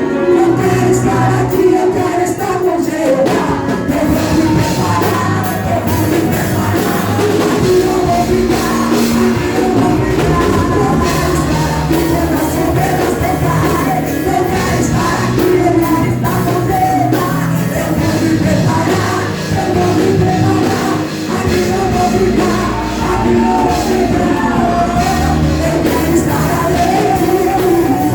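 Live worship band playing a rock-style song, with singing over bass, drums and guitars.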